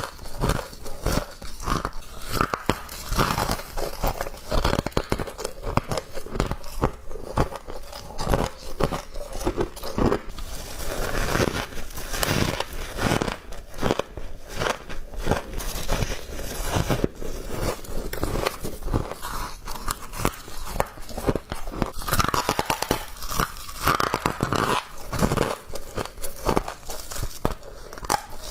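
Close-miked bites into frost, crunching and crackling densely and irregularly one after another.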